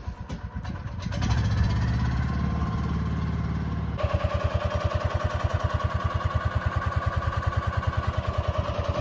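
Petrol engine of a GTM 1300 Professional wood chipper running, rising to speed about a second in. At about four seconds the sound changes abruptly to a fast, even pulsing with a steady whine on top.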